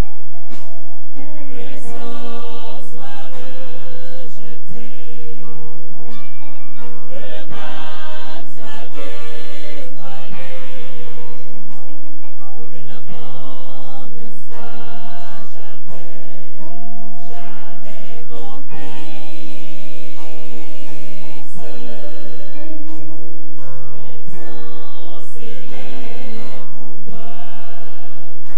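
Gospel music: a choir singing with instrumental backing.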